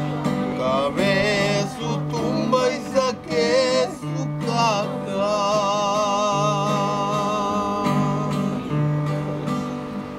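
Acoustic guitar strummed in a steady ranchera-style accompaniment, with a repeating bass note under the chords, while a voice sings long drawn-out notes with vibrato, one held for about three seconds in the middle.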